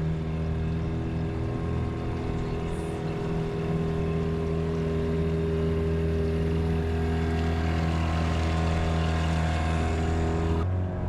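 Motorboat engine running at a steady, even pitch. The sound changes abruptly near the end.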